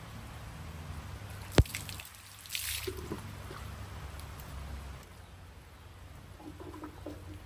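Water from an outdoor tap dripping and splashing into a plastic bucket as hands are rinsed under it. A single sharp knock about one and a half seconds in is the loudest sound, followed a second later by a short splash.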